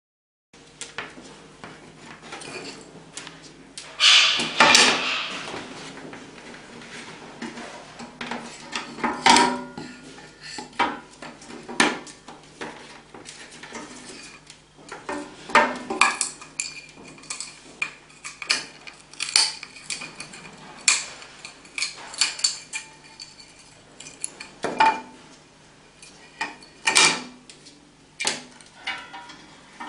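Goffin's cockatoo biting and working a wooden block with its beak to make a splinter tool, then handling the splinter: irregular sharp clicks, taps and clatter of beak and wood against a hard surface, the loudest burst about four seconds in.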